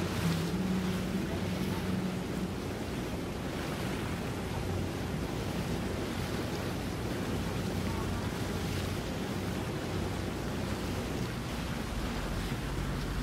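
Motorboat engines running with a low hum, over a steady wash of water and wind noise on the microphone; the hum drops in pitch near the end.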